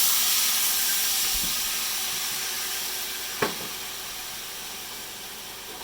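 Hot frying pan hissing and sizzling as vermouth is poured in to deglaze it, the liquid flashing to steam on the hot fat and browned bits; the hiss fades slowly as the pan cools. A single short clink about three and a half seconds in.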